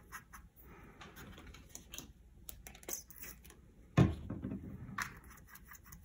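Quiet, scattered clicks and taps of a paintbrush working paint in a watercolour palette, with a single louder knock about four seconds in.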